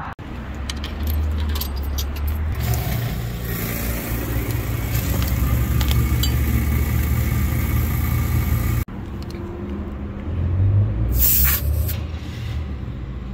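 Small air compressor running steadily to inflate a flat car tyre, a low hum under a hiss of air. Near the end there is one short, sharp hiss of air at the valve stem.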